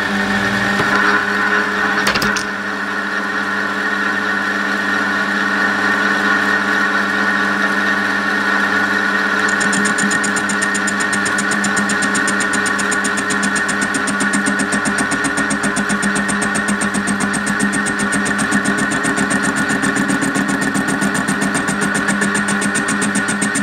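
Small metal lathe running at a steady speed, its motor and gearing giving a steady whine, while the tool takes a light turning cut on a cast aluminium blank. There is a brief click about two seconds in, and a fast, even pulsing joins the sound about ten seconds in.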